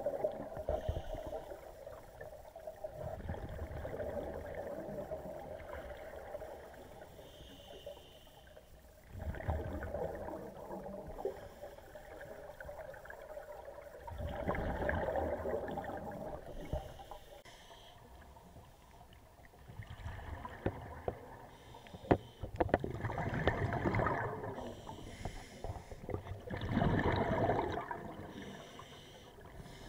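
Scuba diver's breathing heard underwater: a rush of exhaled bubbles from the regulator every four to six seconds, each lasting a second or two, with a faint regulator hiss between. A few sharp clicks come about two-thirds of the way through.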